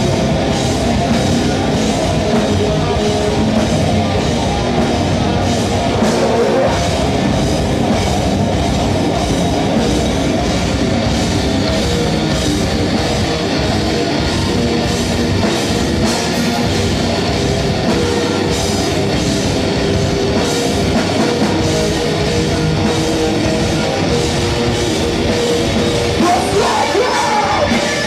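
Metalcore band playing live at full volume: heavy distorted rock with a drum kit and vocals, loud and unbroken.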